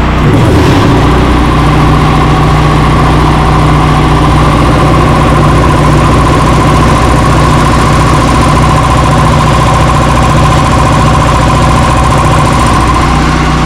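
Electric piston air compressor running loud and steady, pumping its tank back up from about 75 psi.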